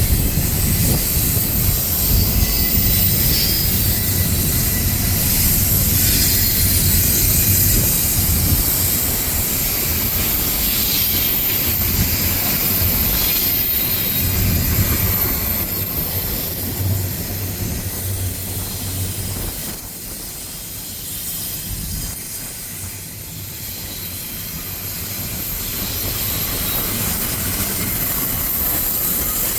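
Train rolling past on the tracks: a continuous rumble of wheels on rail with hiss, easing off about two-thirds of the way through and then building again.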